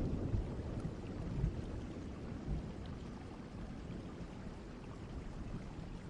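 Distant thunderstorm ambience: a low rumble of thunder dying away slowly over a steady wash of rain.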